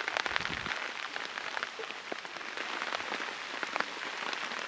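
Steady rain falling on flooded rice paddies and muddy ground, with many sharp close drop hits.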